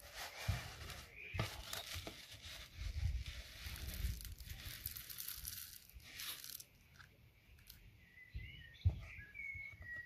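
A heap of small gold-plated RJ45 connector pins rustling and clinking as they are poured from a plastic tub into a plastic container; the pouring eases off about seven seconds in. A small bird chirps near the end.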